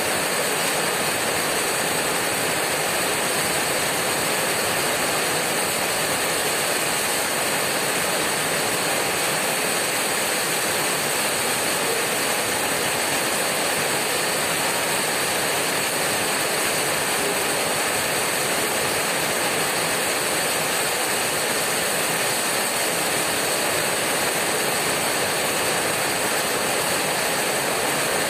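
Heavy rain hammering on a corrugated tin roof, a dense and steady wash of drops.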